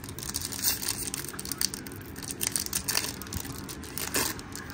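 Foil wrapper of a baseball trading-card pack crinkling and crackling as it is peeled open by hand, a quick irregular run of small crackles.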